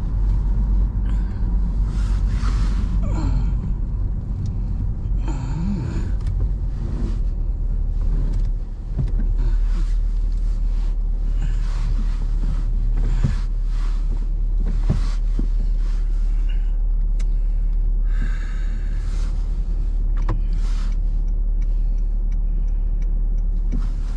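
Car being driven, heard from inside the cabin: a steady low road and engine rumble, with scattered small clicks and knocks.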